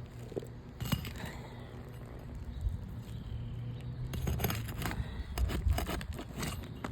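Scraping, crackling and tearing of a pry tool (a roof snake) worked under asphalt roof shingles, breaking the shingles' sealant bond to lift them. The noises come in irregular clicks and scrapes, busiest in the second half.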